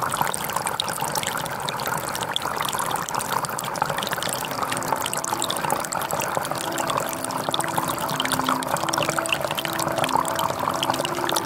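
Water running steadily along a narrow stone-lined channel, a constant rushing with small splashes and trickles. Faint background music with long held notes comes in about halfway through.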